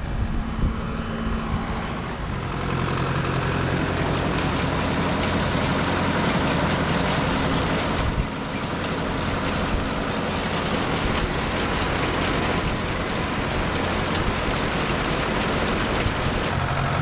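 1978 Ford 7700 tractor's diesel engine running steadily as it pulls a New Holland 850 round baler. A steady low engine note sits under a broad mechanical noise that grows louder about two seconds in.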